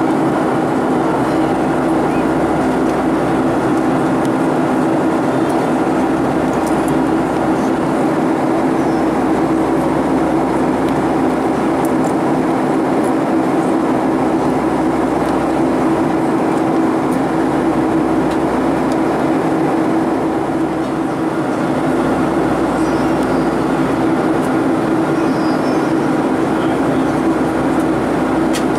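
Steady cabin drone of a Boeing 757-300 airliner in cruise, the engines and rushing airflow blending into an even, unchanging roar with a low hum.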